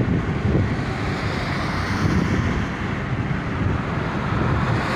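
Steady wind and road noise heard from inside a car travelling at highway speed, with wind buffeting the microphone.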